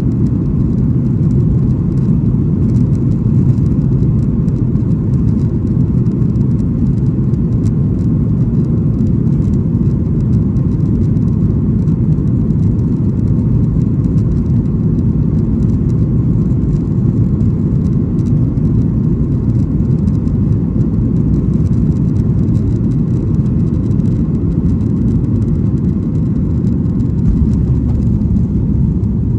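A Boeing 737-800's CFM56-7B jet engines and the aircraft rolling down the runway at takeoff power, heard inside the cabin as a loud, steady deep rumble.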